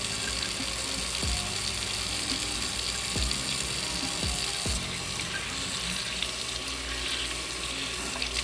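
Kitchen tap running steadily into a sink, water splashing over hands rubbing a vacuum brush bar roller clean, with soft background music.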